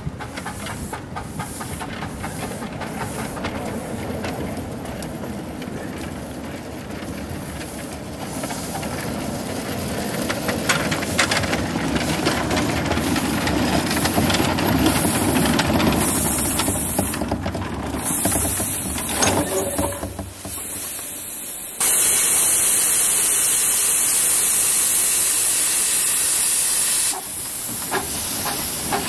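Ridable-scale live-steam train working past close by, with a steady hiss of steam and the cars rolling on the rails. About 22 seconds in, a loud, even blast of escaping steam starts suddenly and runs about five seconds before easing.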